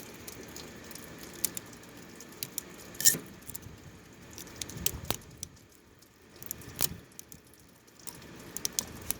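Coil fin straightener being raked through an air-conditioner condenser's coil fins, giving scattered light scraping and clicking, with a sharper click about three seconds in.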